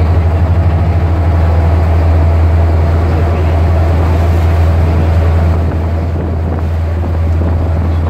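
A tour boat's engine running with a steady low drone, over a hiss of water and wind on the microphone.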